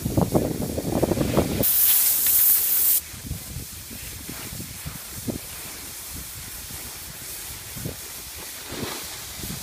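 Wind buffeting the microphone, then a loud hiss of an edge skidding across packed snow for about a second and a half that cuts off abruptly. Afterwards quieter gliding on snow with a few soft scrapes.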